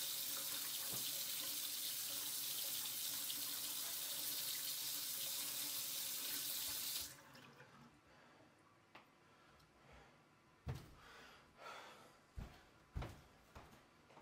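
Bathroom sink tap running steadily, then shut off suddenly about halfway through. A few soft knocks follow near the end.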